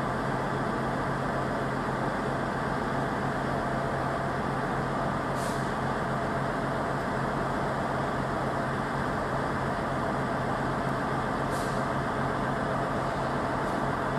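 Freightliner Class 66 diesel locomotive's two-stroke EMD V12 engine running with a steady low hum as it hauls a container train slowly, with two brief high hisses about five and eleven seconds in.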